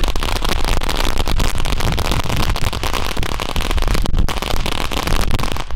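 Weco Wunderwuzzi ground firework spraying sparks, burning with a steady, dense crackling hiss.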